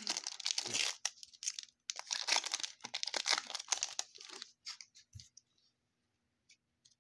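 A trading card pack's wrapper being torn open, crinkling and ripping in one short spell and then a longer one of about two and a half seconds, followed by a few faint ticks and a soft knock.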